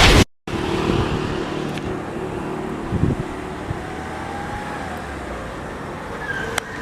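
A loud sound cuts off abruptly just after the start, then a steady low rumble of road and traffic noise, with a sharp click near the end.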